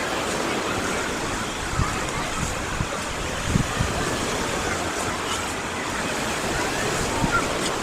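Sea of Azov surf washing steadily onto the beach, an even rush of water with distant voices mixed in. A few low thumps come through, about two seconds in, near the middle and near the end.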